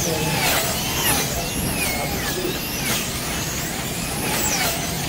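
Several wing slot cars' electric motors whining as they race round the track, the pitch climbing and dropping over and over as the cars speed up and slow down, with several cars overlapping at once.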